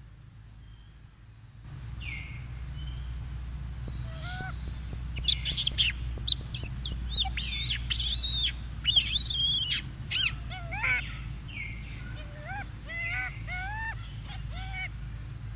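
Infant macaque squealing: a dense run of shrill, arched cries in the middle, then a string of short rising-and-falling whimpers about twice a second, over a steady low hum that comes in about two seconds in.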